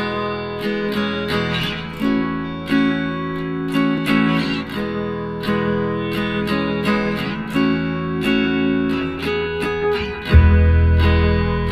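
Background music led by acoustic guitar, with chords strummed and plucked in a steady pattern. About ten seconds in, a deep bass comes in and the music gets louder.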